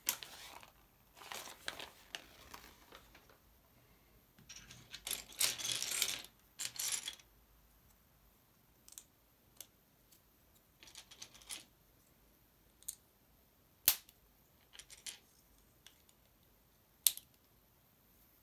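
Paper instruction sheet rustling as it is handled, for the first few seconds. Then plastic LEGO bricks clicking as they are pressed together: single sharp clicks every second or two.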